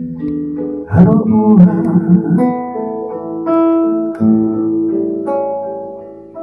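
Acoustic guitar playing an instrumental passage alone: a strum about a second in, then picked notes that ring out and die away, growing quieter toward the end.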